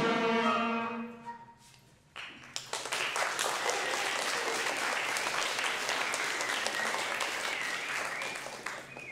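An elementary school concert band of brass and woodwinds ends its piece, the final chord ringing briefly and fading away. After a short pause the audience applauds for several seconds, dying down near the end.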